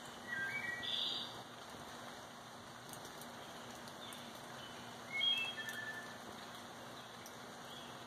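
Steady rain falling, with a bird calling over it: a quick run of short whistled notes about half a second in, and another short call around five seconds in.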